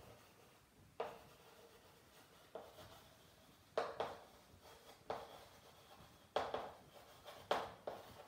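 Chalk writing on a chalkboard: a string of sharp chalk taps and short scrapes at an uneven pace, each dying away quickly.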